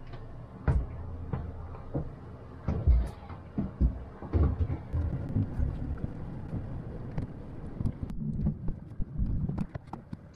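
Yamaha outboard motor pushing the boat at low speed, a steady low hum. Irregular low thumps and knocks run over it.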